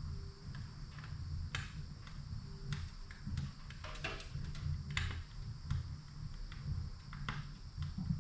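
Firewood crackling in a wood stove: irregular sharp pops and snaps over a low steady rumble.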